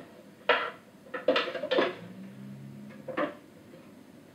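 Hinged wooden doors of a kamishibai stage being opened and handled: four or five short wooden knocks and clacks spread over a few seconds.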